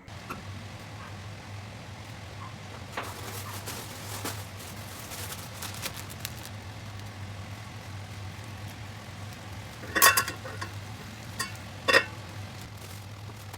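Kitchen cooking and handling sounds: light sizzling and scraping over a steady low hum, with two sharp clinks of a utensil against cookware about ten and twelve seconds in.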